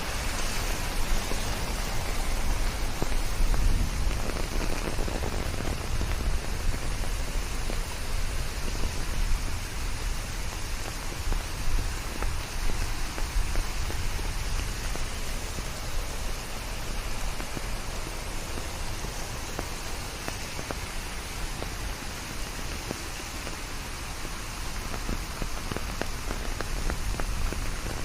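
Steady rain falling, a dense patter of many drops on surfaces.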